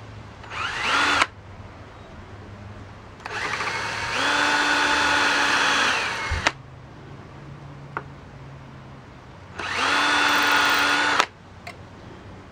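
Cordless drill running in three short bursts, drilling the bowl hole into a soft stone pipe blank. The first burst is about a second long, the second about three seconds and picks up speed partway, and the third is about a second and a half. Each winds up quickly and stops with a click.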